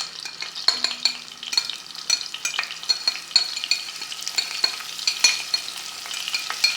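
Chopped onion sizzling in hot oil in a pot while a spoon stirs it, with many quick scrapes and taps of the spoon against the pot.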